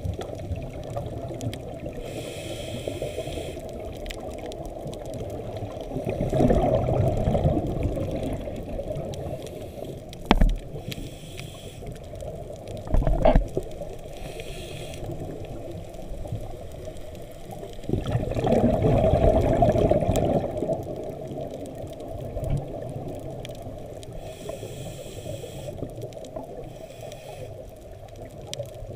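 Muffled underwater sound heard through an action-camera housing: a scuba diver's regulator breathing, with exhaled bubbles swelling up about six seconds in and again at about eighteen. Two short knocks come in between.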